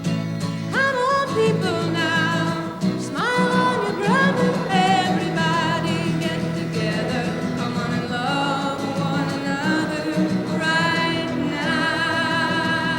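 A woman's solo voice singing with vibrato over a strummed acoustic guitar, live.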